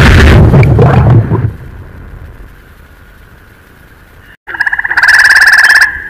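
Lo-fi noise-music tape recording: a dense wall of distorted noise cuts off about a second in, leaving a faint hum. After a brief dropout, a loud, rapidly pulsing buzzy tone sounds for about a second and a half, then falls back to a quieter steady tone.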